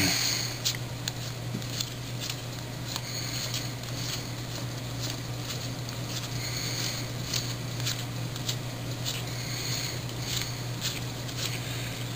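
A stack of Topps baseball cards being flipped through by hand, one card at a time: light clicks and rustles of card stock sliding off the pile, about one or two a second, over a steady low hum.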